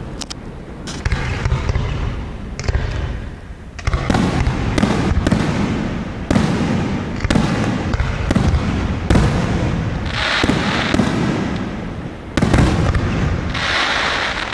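Aerial fireworks bursting in rapid succession, deep booms overlapping one another. Two spells of dense crackling come about two-thirds of the way through and near the end.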